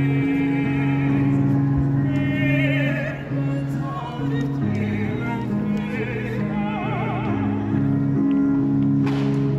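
A man and a woman singing an opera duet, their voices carrying a wide vibrato over sustained low accompanying notes that shift to a new chord about halfway through.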